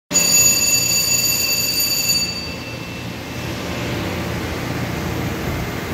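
Steady hum and noise of running shop machinery, with a high-pitched whine of several tones that fades away over the first two to three seconds.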